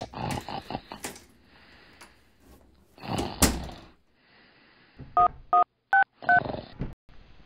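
A telephone keypad being dialled: four short touch-tone beeps, each two tones at once, near the end. Before them come some clicks and a sudden loud clatter.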